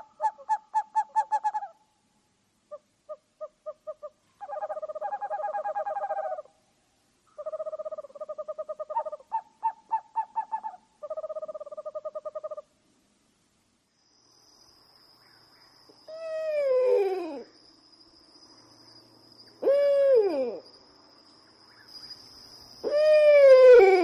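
Owl calls: bursts of rapid, trilled hooting notes for about twelve seconds, then after a short pause three long calls that fall steeply in pitch. A faint steady high whine sits behind the later calls.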